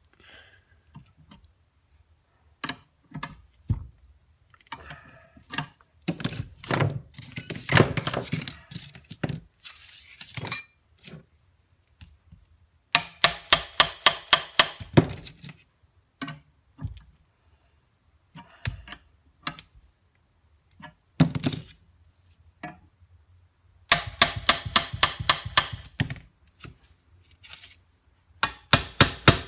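Hand tools working a split bearing puller on a motorcycle crankshaft gear: scattered metal taps, knocks and clinks, and twice a quick run of sharp, ringing metallic strikes, about seven a second, each lasting two to three seconds.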